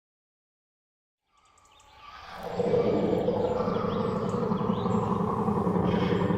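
Fan-made therizinosaurus creature roar sound effect: a long, rough roar that swells in about a second and a half in and then holds steady.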